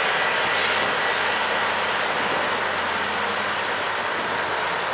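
Loram RG314 rail grinder train passing while at work: a steady, loud rushing noise that mixes its grinding and machinery. The water cannon on its rear car is spraying the trackside to put out fires started by grinding sparks.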